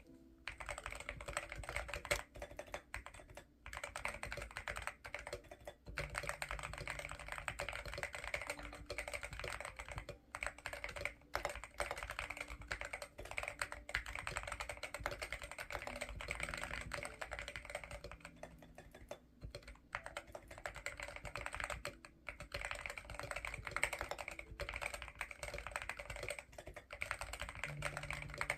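Mechanical keyboard fitted with Akko Rosewood switches being typed on continuously, a fast stream of key clacks with a few short pauses.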